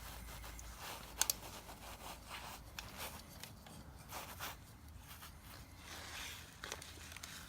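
Faint scraping and small clicks of spark plug wires and their hand-screwed terminals being handled on a Ford Model A engine, with one sharper click about a second in.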